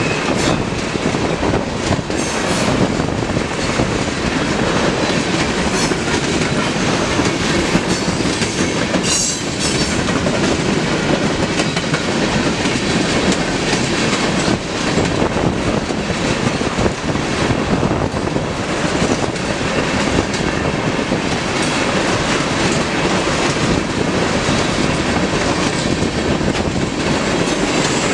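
Freight train cars rolling past at close range, a steady rumble of wheels clicking over the rail joints, with a brief high wheel squeal about nine seconds in.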